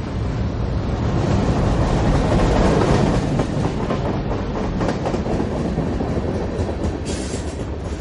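Train running on rails, swelling louder about two to three seconds in, then easing off, with a short burst of high hiss about seven seconds in.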